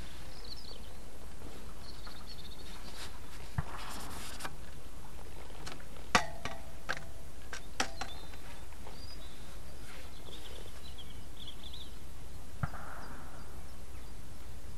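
Outdoor ambience: small birds chirping off and on over a steady low rumble, broken by a few sharp clicks, the loudest about six seconds in, and a couple of short rustles.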